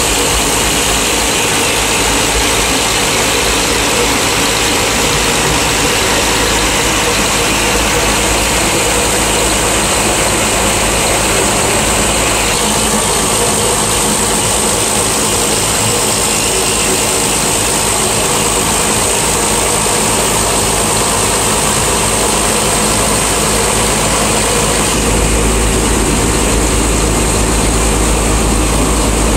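Large inline diesel engine of a river passenger boat running steadily, heard up close in the engine bay. About 25 s in, a stronger low rumble and a rushing hiss of wind and water join the engine.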